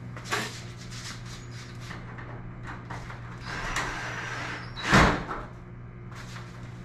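Cordless drill running briefly as it drives a self-tapping screw into the aluminium garage door panel, then a single loud thump that rattles the door panel.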